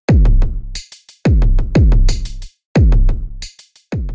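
Outro music: an electronic beat with heavy, deep bass drum hits that drop in pitch, about every half second, with quick hi-hat ticks between them.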